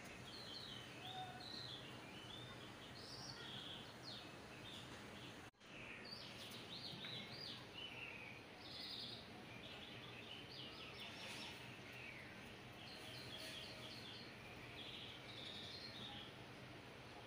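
Small birds chirping and twittering faintly and continually over a steady low hum, with a brief dropout about five and a half seconds in.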